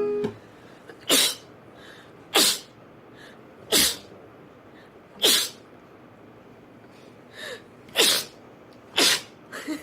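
A girl sneezing rapidly: six sharp, loud sneezes about one to one and a half seconds apart, with a couple of softer ones between the last few.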